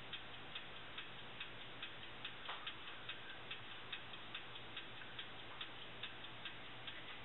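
Faint, steady ticking, about two and a half ticks a second, over a low steady hum.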